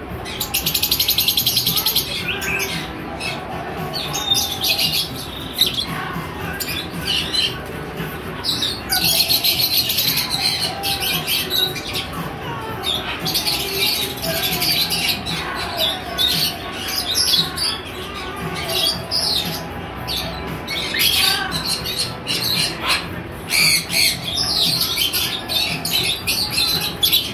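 A large flock of lovebirds chattering and screeching, many shrill calls overlapping without a break, swelling in louder spells and easing between them.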